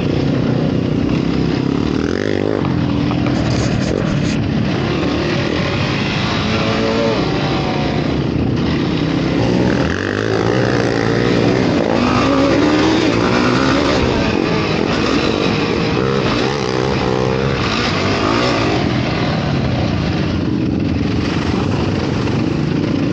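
Yamaha YFZ450 sport quad's single-cylinder four-stroke engine running hard on a trail ride, its revs rising and falling again and again with the throttle, over a steady rush of wind noise.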